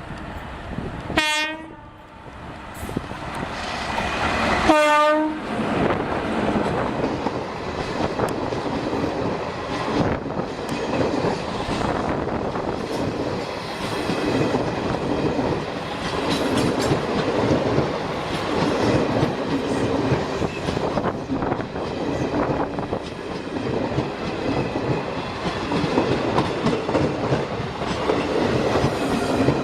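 Electric locomotive's horn sounding two short blasts a few seconds apart, the 'POM POM' honk of a WAP-4. The passing express train follows, a loud steady rumble with wheels clacking over the rail joints.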